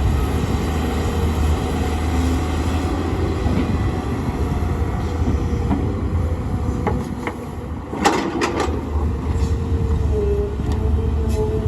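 Excavator's diesel engine running steadily under load, with a short cluster of sharp metallic clanks about eight seconds in.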